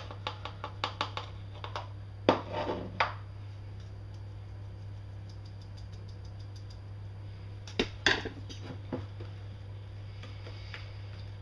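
A sieve being tapped and shaken over a mixing bowl as flour is sifted into stiff cookie dough, giving runs of quick light clicks. There are louder scrapes about two seconds in and again near eight seconds, over a steady low hum.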